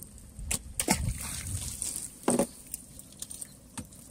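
Water sloshing and dripping as a wet gill net is hauled and handled in a wooden boat, with a few sharp knocks and slaps; the loudest comes about two seconds in.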